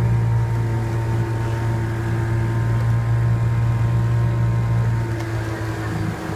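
Outboard motor of a coaching launch running steadily at cruising speed, a constant low hum, dipping slightly near the end.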